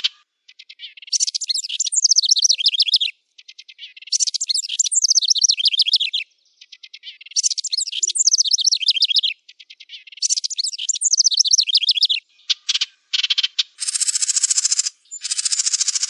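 Wren singing: four bubbly songs of about two seconds each, every one a rapid run of descending trilled notes, about a second apart. From about two-thirds of the way in come several harsh buzzy rattles.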